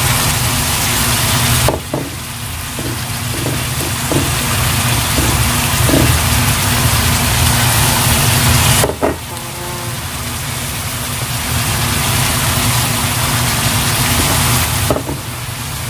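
Pork, carrot and potato empanada filling cooking in a pan on the stove: a steady hiss over a low hum, with a few light taps a few seconds in. The sound drops abruptly in level a couple of times.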